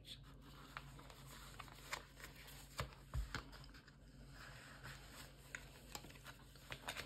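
Faint paper rustling and scattered small clicks as a clipped paper signature is handled and pierced with an awl to make a sewing hole, with a soft thump about three seconds in.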